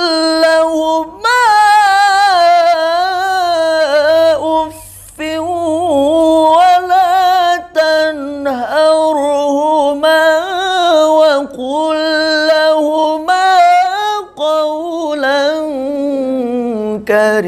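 A solo male voice reciting the Quran in a high register, melodic and unaccompanied, drawing out long ornamented notes with a wavering pitch. It breaks briefly for breath about five seconds in and a few more times later.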